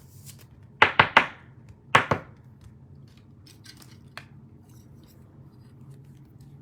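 Two quick clusters of sharp clicks and snaps on a tabletop, three about a second in and two near the two-second mark, from trading cards and their packaging being handled.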